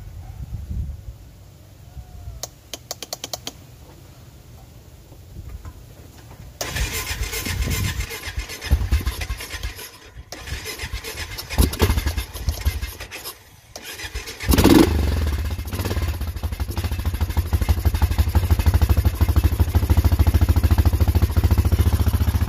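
Honda Foreman ATV's single-cylinder four-stroke engine being cranked in two tries, with its carburetor freshly cleaned and the choke on. It catches about fifteen seconds in and settles into a steady, evenly pulsing idle.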